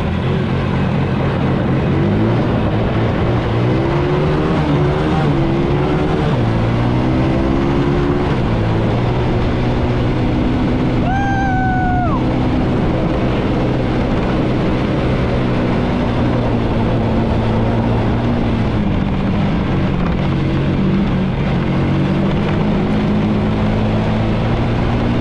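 ATV engine running under throttle, its pitch climbing and dropping again and again as the rider speeds up and eases off. About eleven seconds in comes a short high-pitched shout from the rider.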